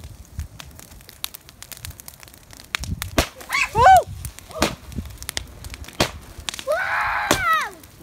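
Small garden fireworks crackling with many sharp pops as they burn and throw sparks. Voices call out over them twice: a short exclamation about four seconds in, the loudest moment, and a longer rising-then-falling call near the end.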